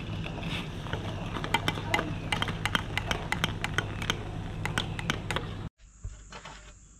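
Metal spoon clinking repeatedly against an enamel mug while stirring a hot drink as water is poured in from a kettle. It cuts off suddenly near the end, giving way to a steady high-pitched insect drone.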